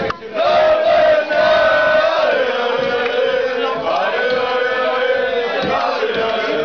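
A crowd in a bar singing loudly together in unison, men's and women's voices on long held notes that step up and down, with a short break just after the start.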